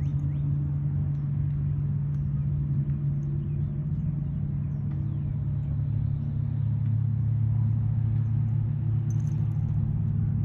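Domestic cat purring steadily and loudly close to the microphone, a low continuous rumble, the sign of a contented cat.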